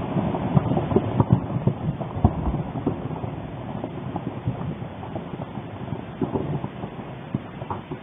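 Popocatépetl volcano's explosive eruption heard through a webcam microphone: a low, rumbling roar dotted with many sharp cracks, slowly fading.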